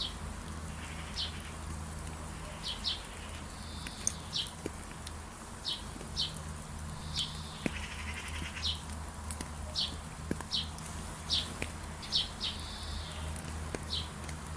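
Birds chirping: short, sharp, downward-sliding notes one or two a second, with a brief buzzy call about halfway through, over a steady background hiss.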